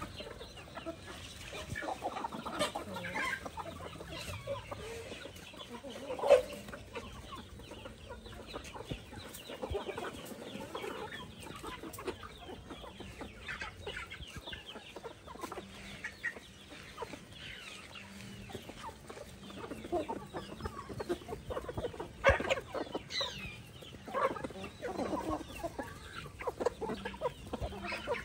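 A flock of chickens clucking and calling as they peck at scattered feed, with one louder call about six seconds in.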